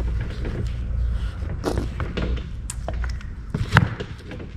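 Small chainsaw parts and hand tools clicking and knocking as an old Poulan chainsaw is taken apart by hand: a few sharp clicks, the loudest about four seconds in.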